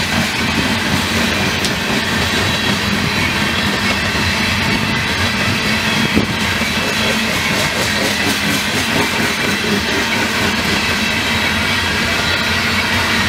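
Freight train of coal hopper cars rolling past on the rails: a steady rolling rumble of wheels on track, with one sharper knock about six seconds in.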